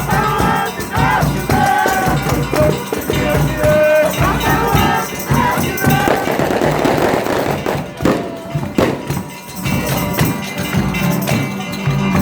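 Folia de Reis folk music: voices singing over tambourine and shaken rattle-like percussion. The singing lines stand out in the first half, then give way to a busier, noisier stretch of percussion.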